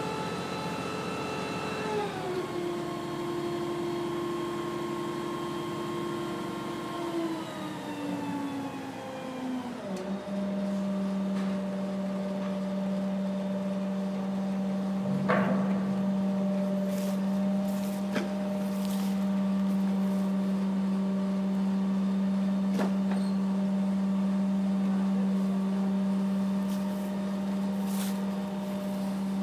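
Boat-lift or boat machinery: a motor running with a droning note that drops in pitch about two seconds in and glides lower until about ten seconds in, then holds a steady hum. One sharp knock comes about halfway through, with a few light clicks after it.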